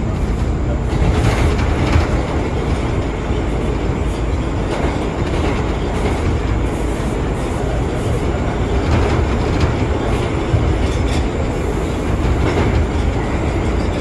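R179 subway train running at speed, heard on board: a steady low rumble with irregular clicks and clatter from the wheels on the track.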